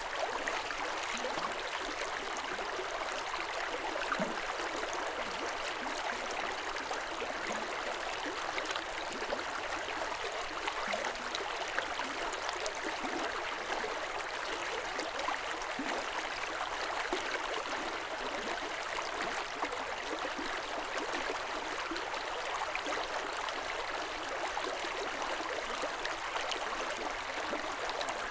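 River water running steadily over stones, a constant rushing and gurgling.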